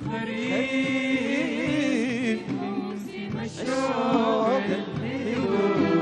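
Sudanese song performed live: a man singing a long, wavering melodic line into a microphone over band accompaniment.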